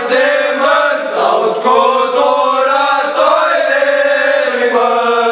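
A group of young men singing unaccompanied, one chorus's phrase of an old Romanian antiphonal Christmas carol (colind), with long held notes.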